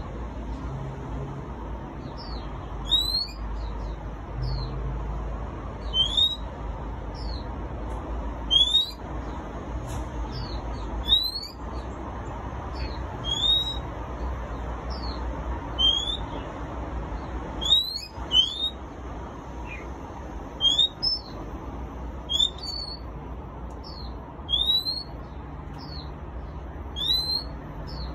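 Oriental magpie-robin giving a short rising whistle over and over, about once every two to three seconds, some notes doubled, over a steady low hum.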